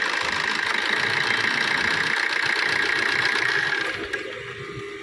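Maruti Suzuki Swift engine running, with a loud steady hiss over it that cuts off about four seconds in, leaving the engine idling.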